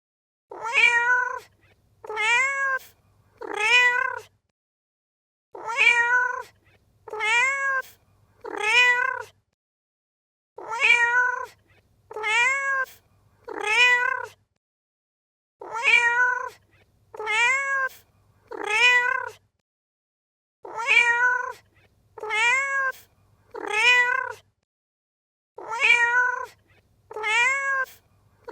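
Domestic cat meowing in runs of four short meows, each rising then falling in pitch. The same run of four repeats about every five seconds with short silences between runs, as a looped recording.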